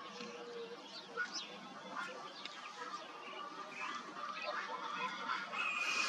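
Morning birdsong: many birds chirping and calling over one another in short high notes. A rooster begins to crow near the end, its long held note the loudest sound.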